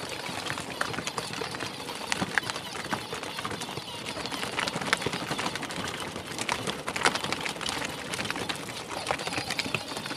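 Plastic wheels and body of a Peg Perego battery-powered toy Jeep clattering over a rutted, muddy dirt track: irregular clicks and knocks over a steady rough rumble.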